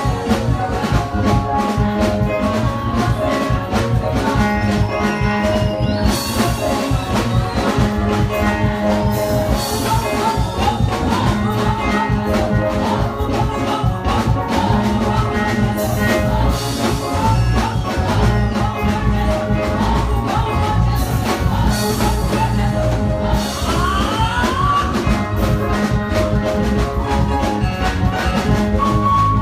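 Mass choir singing with a live band, drums keeping a steady beat.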